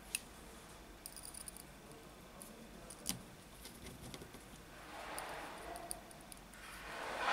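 Light metallic clicks and ticks of a precision screwdriver and tiny screws being picked up and driven into a phone's midframe, one sharper click about three seconds in. A soft rushing noise swells near the end.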